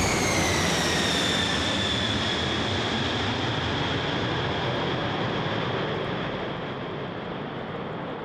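Jet aircraft engine noise: a broad rush with a high whine that falls in pitch over the first couple of seconds, then a steady rush that slowly fades away.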